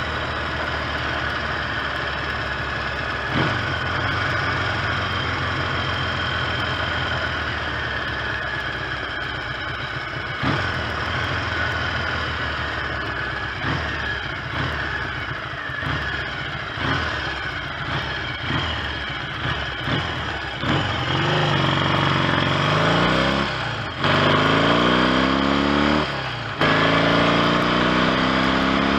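1970 Triumph T100C's 500 cc parallel-twin engine running steadily, then pulling away and accelerating hard through the gears: the note rises, drops suddenly at each of two gear changes, and rises again. The clutch has fresh plain plates and the ignition new points.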